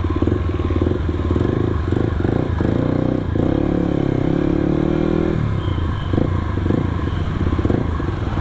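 Yamaha WR155's single-cylinder engine running through an aftermarket Radamel Racing exhaust while riding, a bassy, dense exhaust note. The engine speeds up about two seconds in and drops back around five seconds in.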